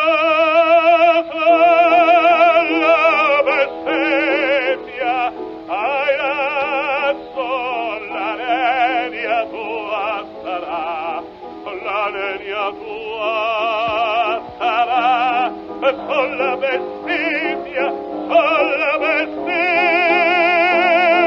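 Operatic baritone singing a dramatic Italian phrase full voice with a wide vibrato over an accompaniment, his tone carrying a bright ring (squillo). The phrases break off and restart several times.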